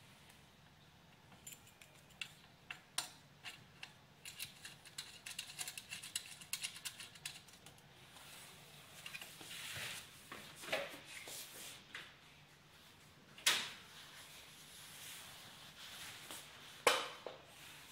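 Cables and round metal screw-on connectors being plugged into a machine's control cabinet: a quick run of small metallic clicks and rattles, then a few separate louder knocks, the loudest near the end.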